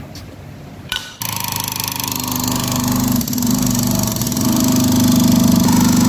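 A compressed-air-operated 10,000 psi hydraulic pump starts about a second in when its foot pedal is pressed. It then runs with a fast, steady pulsing that grows louder as it pumps oil to close the hose crimper.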